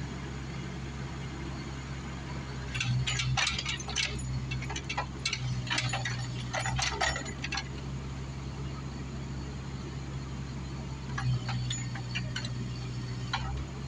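Bobcat 331 mini excavator's diesel engine running steadily, with two spells of sharp clinks and cracks as its hydraulic rock hammer works against a concrete slab, the first about three seconds in and the second near the end.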